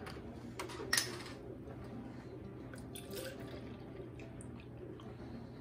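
Milk poured from a plastic gallon jug into a plastic measuring cup, after a sharp click about a second in as the jug's cap comes off. A dishwasher hums steadily underneath.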